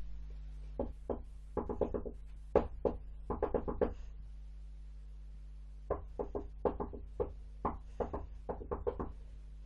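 Hands knocking and drumming on the lid of a hollow plastic storage box: two runs of quick, uneven knocks with a short gap between them, over a steady low electrical hum.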